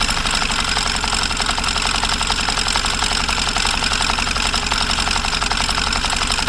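Yamaha FZS V4's single-cylinder engine idling just after starting, with a fast, grating rattle from the balancer gears. A tooth on the crank balancer pinion was bent by tightening and loosening its nut with a bolt jammed in, so the gears no longer mesh properly.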